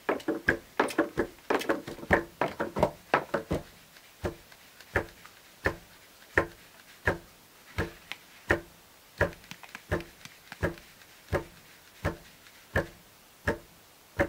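A small plastic bowl knocking against the rim of a large aluminium bowl, sharp knocks with a short ring. A quick cluster comes first, then single knocks at an even pace of about three every two seconds.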